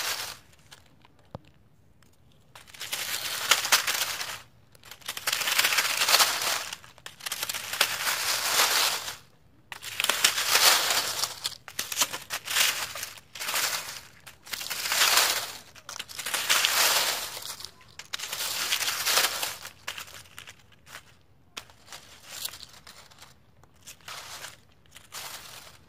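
Dry fallen oak leaves being crunched and shuffled through underfoot: about nine loud crackling bursts of a second or two each, with short pauses between, then softer, shorter crunches in the last several seconds.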